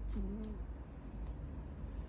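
A man snoring: one short, low hooting snore note just after the start, over a steady low rumble, with a few faint clicks.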